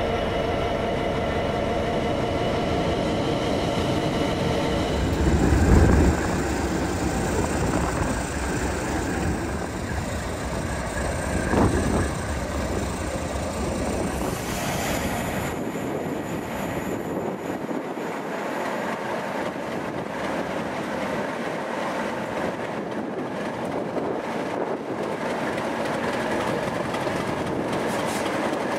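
Train passing along the line. A steady whine is heard for the first few seconds, then two louder low rumbles come about six and twelve seconds in. After that the train settles to steady rail running noise with less bass.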